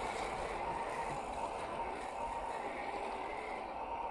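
1/10-scale RC crawler's 550 brushed electric motor and gear train whining steadily as it crawls over dry, cracked mud, the pitch wavering slightly.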